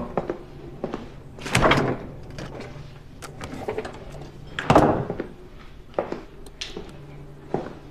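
Refrigerator door pulled open, then shut about three seconds later, each a short rushing sound, with a few light clicks and knocks in between.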